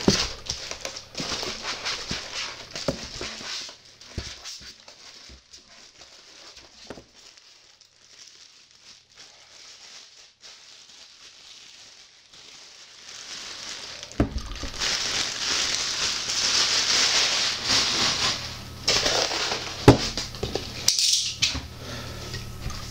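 Plastic wrapping crinkling and rustling as a boxed statue is pulled out of its bags, loud in the first few seconds and again in the second half, with a quieter stretch of small clicks in between. A couple of sharp knocks come in the second half.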